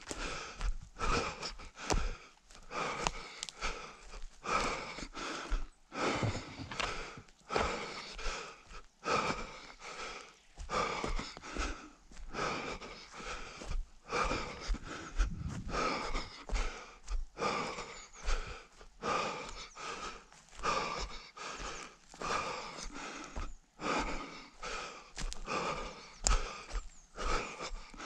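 A runner's heavy, rhythmic breathing, with steady, even breaths at running pace, close to the microphone.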